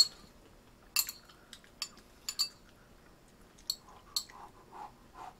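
Metal eating utensils clinking against a ceramic bowl while eating noodles: about half a dozen sharp, short clinks, spaced irregularly.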